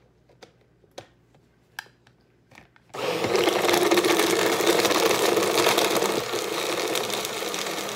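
Hamilton Beach personal blender: a few light clicks as the jar is seated and pressed down, then about three seconds in the motor starts abruptly and runs loud and steady, blending fruit, almond milk and ice, easing slightly after about six seconds.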